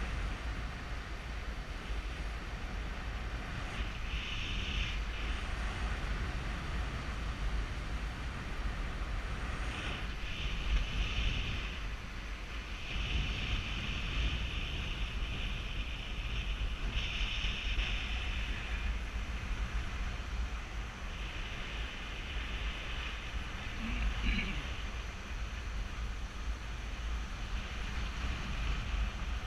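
Wind buffeting a GoPro's microphone in paragliding flight: a steady low rumble, with a higher hiss that swells and fades several times.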